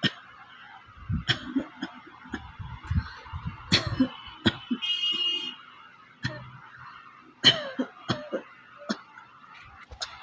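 A person coughing repeatedly: short, sudden dry coughs coming irregularly, about eight in all, from a real dry cough.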